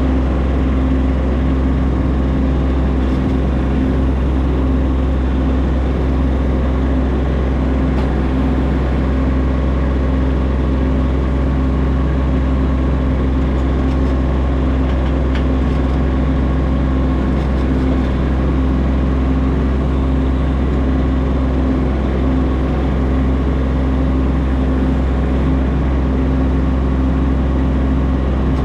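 An engine running steadily at one constant speed, with no revving up or down.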